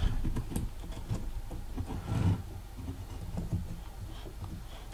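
Faint handling noise: small clicks and rustles as a wire is fitted into a metal part held in the clips of a helping-hands stand, with a slightly louder rustle about two seconds in, over a steady low hum.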